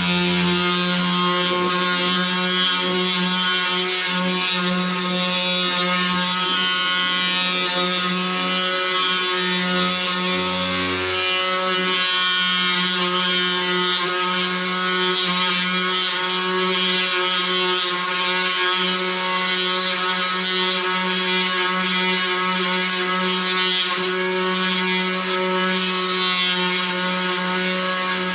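Handheld electric sanding tool running steadily while sanding stain off wood: a constant motor hum with a sanding hiss over it.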